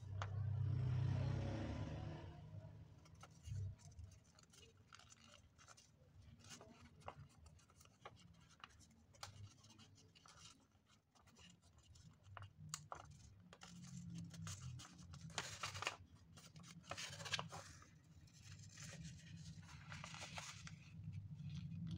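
Sheet of origami paper rustling and crinkling as fingers pinch and press creases into it, a run of soft scrapes and short crackles, loudest in the first two seconds.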